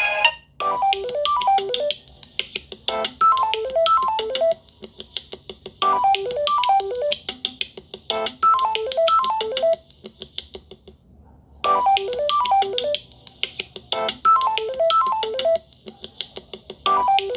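Samsung Galaxy A20s stock ringtone playing: a short electronic melody of quick falling note runs over a ticking beat, the phrase repeating every few seconds. It pauses for about a second partway through, then loops again.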